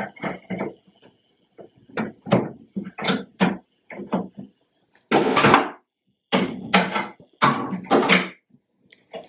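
A run of wooden knocks and short scraping bursts from kitchen cabinet carcasses being shifted, levelled and fixed together. They come irregularly, with the longest and loudest burst about five seconds in.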